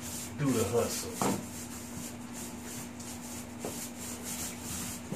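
Paint roller worked back and forth over a wall, a steady rhythm of rubbing, swishing strokes.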